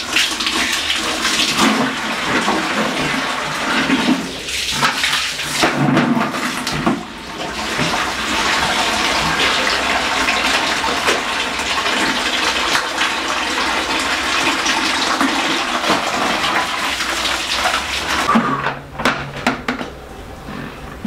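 Water rushing and splashing in a tiled bathroom while the floor is washed down, a steady rush that stops near the end, followed by a few short knocks.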